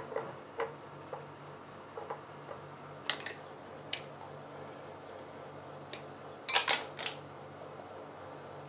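Handling sounds while cornstarch is worked into a raw snapper fish head on an enamel plate: a few soft pats in the first second, then scattered sharp clicks and taps, loudest in a quick cluster of three about six and a half seconds in. A low steady hum runs underneath.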